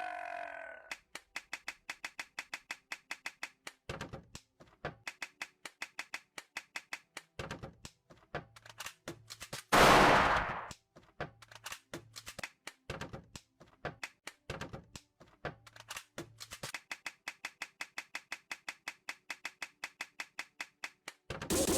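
A fast, even run of sharp clicks, about four a second, with heavier thuds mixed in and one short, loud noisy burst about ten seconds in.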